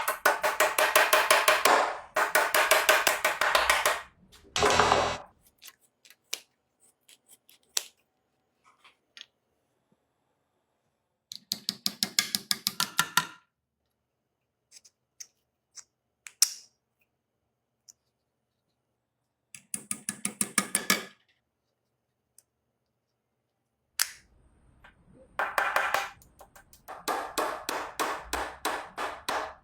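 A hammer striking nails in fast runs of ringing taps: several bursts, with scattered single knocks and short quiet gaps between them.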